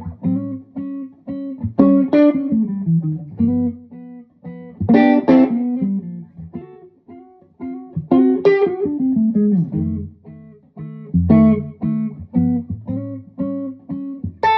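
1960 Gibson ES-345 electric guitar played through a Marshall JTM45/100 Super 100 tube amplifier: chords struck every three seconds or so, with single-note phrases between them.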